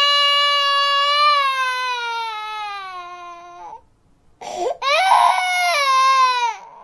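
A baby crying in two long wails with a short break between them, each wail sliding down in pitch as it fades.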